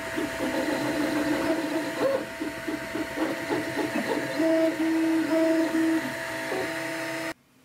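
Flashforge Dreamer 3D printer printing: its stepper motors whirring and whining in shifting pitches as the print head moves, with steady held tones on some moves. The sound cuts off suddenly about seven seconds in.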